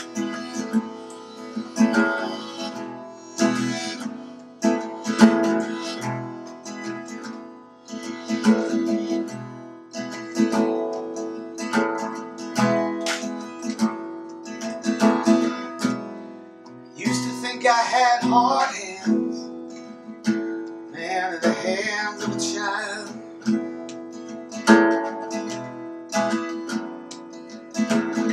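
Acoustic guitar strummed in a steady, regular pattern. Past the middle, a harmonica on a neck rack comes in with two short phrases whose pitch wavers.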